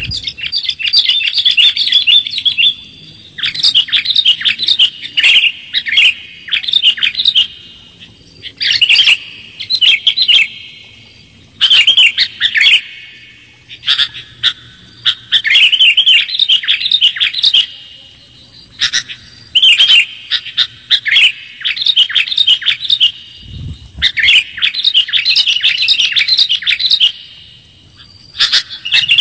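Sooty-headed bulbul (kutilang) calling: loud, clear, chattering song phrases, each a second or so long, repeated every one to two seconds with brief pauses between them.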